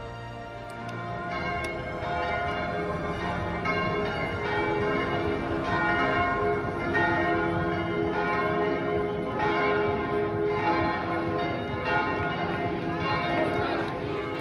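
Bells ringing in a continuous peal, with many strikes overlapping and ringing on. The peal grows louder about a second in.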